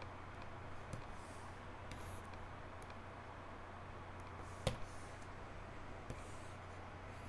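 A few faint computer mouse clicks over a steady low hum, the sharpest click about four and a half seconds in.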